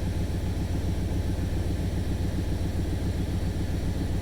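1995 Chevy Suburban's V8 idling steadily and smoothly just after a cylinder-head rebuild, with a fast, even ticking puff from an exhaust leak.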